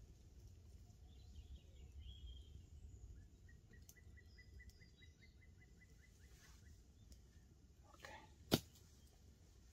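Faint woodland ambience with a steady low rumble. A bird calls a fast run of short, evenly spaced high notes, about five a second, for about three seconds. A single sharp snap comes near the end.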